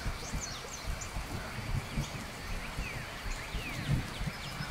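Countryside nature ambience: many short, falling bird chirps over a steady hiss, with irregular low thumps underneath.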